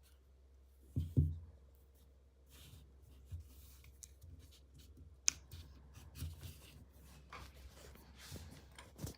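Hands handling a small device and its packaging: soft rubbing and scraping, two dull knocks about a second in, and a single sharp click a little past five seconds.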